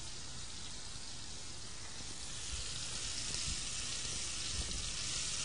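Lamb meatballs sizzling steadily in a pan of hot oil: an even, soft frying hiss that grows a little louder near the end.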